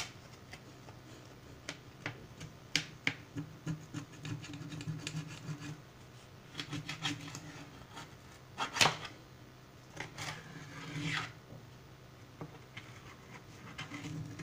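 A freshly baked round loaf of khobz eddar being divided into pieces: the crust crackles and scrapes in a string of short, irregular rasps and sharp clicks, with one louder crack just before the middle and a longer scrape soon after.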